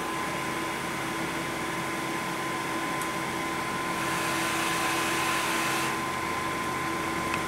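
Healthdyne Quantum PSV ventilator running, its air outlet partly taped over to simulate an attached patient. A steady whine sits over a rush of air, and the rush swells for about two seconds from around four seconds in as the machine cycles a breath.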